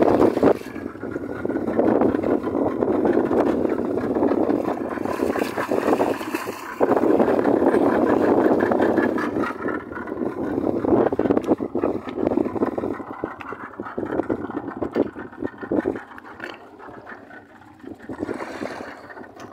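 Water rushing and splashing against the hull of a small open fishing boat, uneven in loudness and easing off in the last several seconds.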